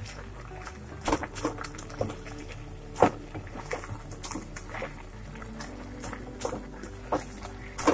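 Wooden spatula stirring wilted bathua greens in a nonstick pan: irregular knocks and scrapes against the pan, the loudest about three seconds in.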